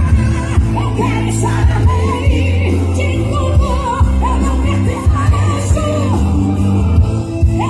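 Live gospel band music: a steady drum beat and heavy bass under a wavering lead melody line.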